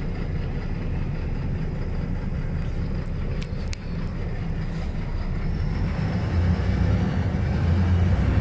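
LiAZ-5292.22 city bus running, its engine and road noise heard as a steady low rumble from inside the passenger cabin. The rumble grows louder from about five and a half seconds in, with a couple of short clicks a little past three seconds.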